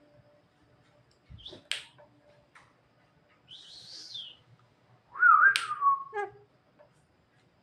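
Javan myna vocalising: a few sharp clicks, a short breathy hiss near the middle, then a loud whistled note about five seconds in that wavers and drops in pitch.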